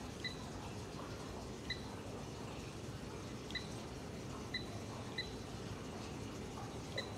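Touchscreen control panel of a chocolate ball refiner giving short, high electronic key beeps as its buttons are pressed: six beeps at uneven intervals, a little over a second apart. A steady running noise of the machinery continues underneath.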